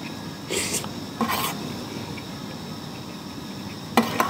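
Eating sounds: a spoon scraping rice in a plastic lunch box, heard as a few short scrapes, with a sharp tap against the box near the end.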